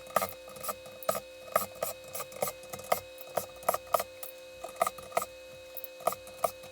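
Small screwdriver ticking and clicking against laptop battery screws as they are backed out, irregular clicks several times a second over a steady low hum.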